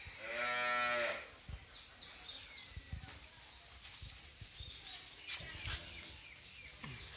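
A drawn-out animal call lasting about a second at the start, followed by faint scattered clicks and taps.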